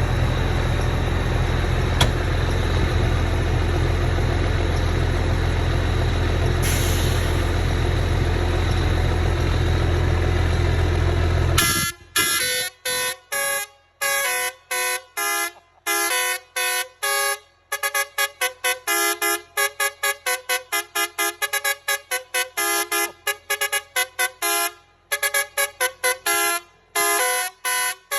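A steady low rumble for about the first twelve seconds, then a German car's horn sounding in rapid short blasts at changing pitches, two or three a second.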